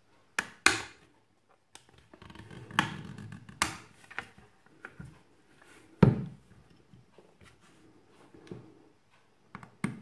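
Plastic back cover of a Samsung B355E phone being pried off: two sharp snapping clicks as the clips let go, then scraping and rustling of plastic in the hands. About six seconds in comes a dull thump as the phone is set down on the mat, followed by a few light taps.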